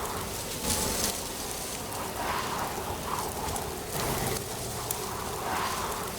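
Wind blowing through dry autumn leaves, a steady rustle that rises in swells every second or so.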